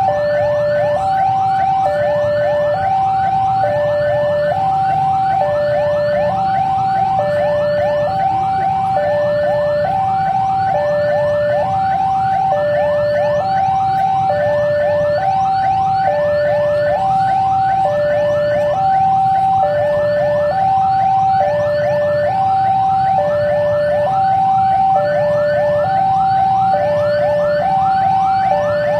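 Electronic two-tone warning siren alternating high and low about every three quarters of a second, over a fast, repeating rising yelp, with a low steady rumble beneath.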